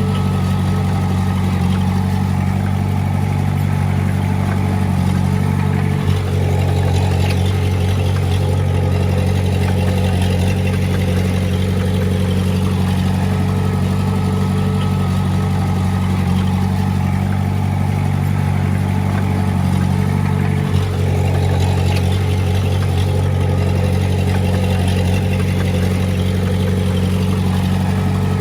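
Heavy-equipment diesel engine running steadily under light load, its note briefly dipping and shifting twice, about six seconds in and again around twenty-one seconds.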